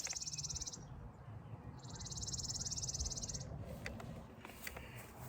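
An insect's rapid, even, high-pitched buzzing trill, like a cicada or katydid, in two spells: it stops about a second in and starts again at about two seconds for a second and a half. A low rumble runs underneath.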